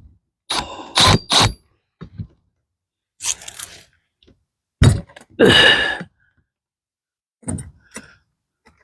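Tools and hinge hardware being handled against a wooden raised bed: a scattered series of knocks and scrapes. The loudest is a sharp knock about five seconds in, followed by a half-second rasping scrape.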